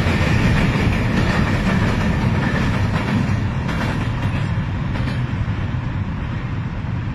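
Freight wagons rolling across a steel truss railway bridge: a low, steady rumble with wheel clatter on the rails. It slowly fades as the end of the train passes.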